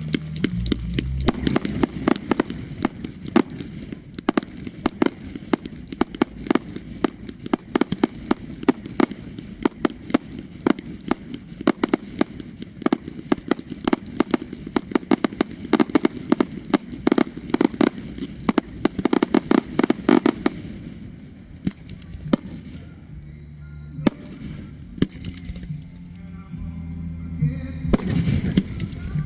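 Aerial fireworks going off in a dense, rapid barrage of bangs and crackles, many reports a second, for about twenty seconds. They then thin to scattered bangs, with a fresh flurry near the end.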